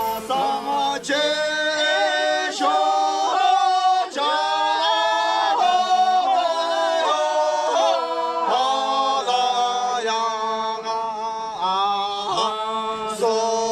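Singing: a melody of held notes that change every half second or so.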